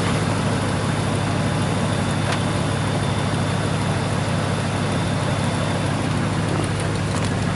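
Pickup truck engine idling steadily, an even low drone.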